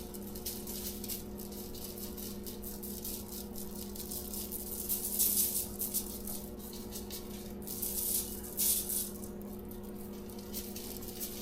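Dry barbecue rub being shaken out of a shaker bottle onto a pork butt: bursts of rattling, heaviest about five seconds in and again around eight to nine seconds, over a steady low hum.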